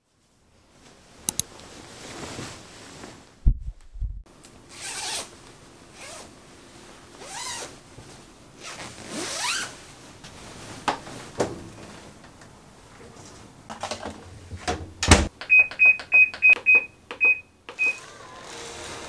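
Household handling sounds, scraping and sliding with a few knocks, followed near the end by a quick run of about eight short, high electronic beeps.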